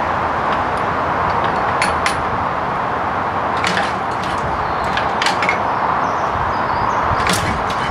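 Ransomes MG5 crawler's single-cylinder petrol engine running steadily, with several sharp metallic clicks from its controls being worked.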